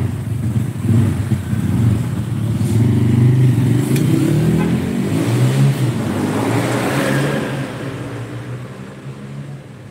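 A motor vehicle's engine running, its pitch rising and falling, then growing quieter over the last two seconds as if moving away.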